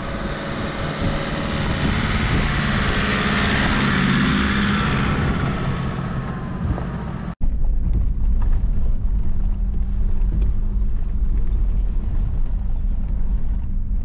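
A four-wheel drive comes up a sandy dirt track, its engine and tyres growing louder as it approaches. About halfway through, a sudden cut to the low engine and road rumble heard inside a 4WD's cabin as it drives along a rough bush track, with small rattles and knocks.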